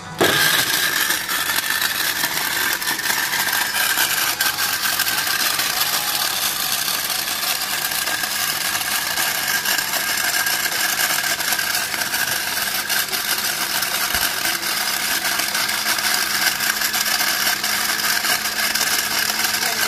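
Panasonic MX-GX1021 countertop blender switched on and running steadily at speed, chopping pieces of lemon peel with a little water.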